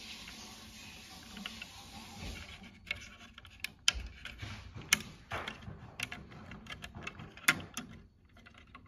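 Sharp plastic clicks and taps from fingers handling a thermostat wallplate and its wiring terminals, a scattered run of them starting about three seconds in, after a faint steady hiss.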